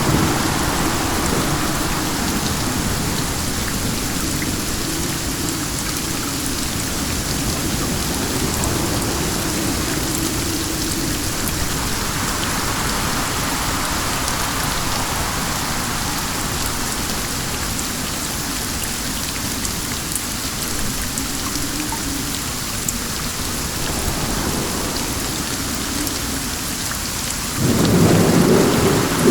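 Steady rain falling with wind, over a low wavering rumble. The rumble swells louder near the end.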